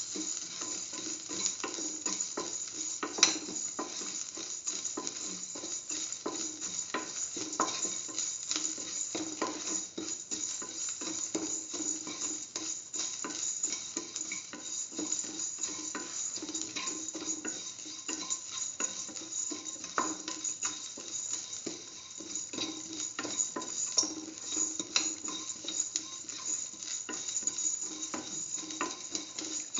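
Shallots, ginger, garlic and mustard seeds sizzling in oil in a stainless steel pan, with a steady hiss, while a spatula stirs them, scraping and clicking against the pan many times.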